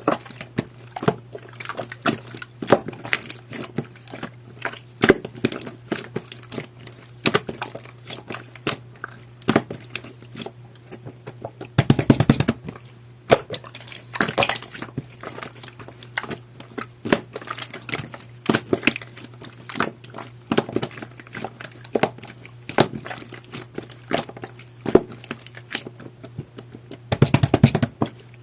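Jelly-textured slime being squished and poked by hand, giving irregular sticky clicks and pops, with two denser runs of crackling, about twelve seconds in and near the end.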